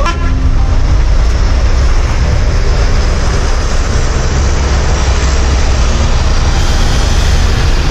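Diesel bus engine idling close by: a loud, steady, low rumble.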